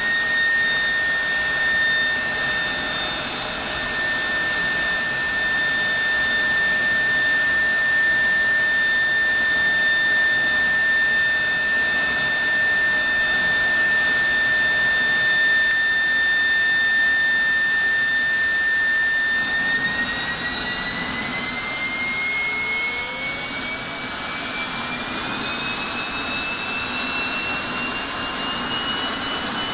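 General Electric F110-GE-100 turbofan jet engine running on a test stand: a steady rushing roar with a high whine that holds its pitch, then from about two-thirds of the way through rises slowly as the engine spools up to higher power.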